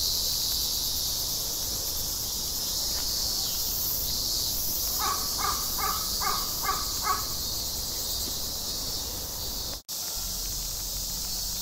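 A crow cawing about six times in quick succession, over a steady high chirring of insects.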